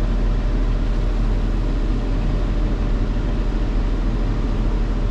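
Fendt 724 Vario tractor's diesel engine idling steadily, heard from inside the cab as an even low rumble.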